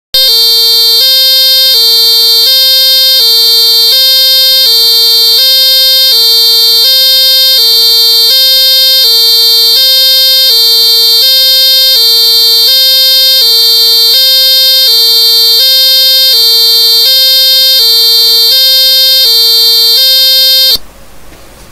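Electronic siren circuit built around a timer IC, imitating an American police car siren. It gives a loud, buzzy tone that steps back and forth between two close pitches about twice a second, then cuts off abruptly near the end.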